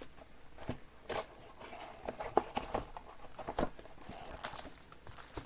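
Hands opening a sealed box of trading cards: plastic wrapping crinkling and tearing, with scattered small clicks and taps of cardboard being handled.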